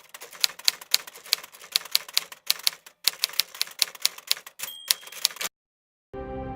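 Typing on an 1887 Crandall New Model type-sleeve typewriter: uneven sharp key strikes at about three or four a second, with short pauses, and a brief ringing tone near the end. The typing stops suddenly and background music comes in.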